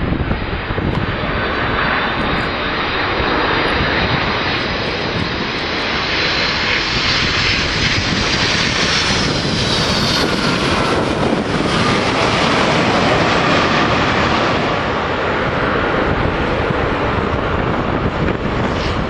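Boeing 757-200 jet airliner's engines roaring steadily as it passes on its approach to land, with a high whine that rises and then falls in pitch about halfway through.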